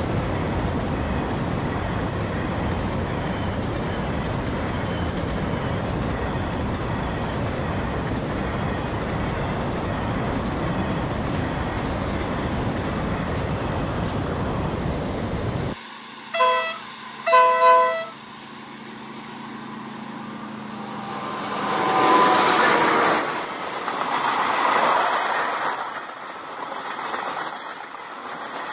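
A steady rushing noise cuts off suddenly; then a diesel locomotive's horn sounds two short blasts about a second apart, and a log train runs past on the track, its wheel noise rising to a peak and easing off.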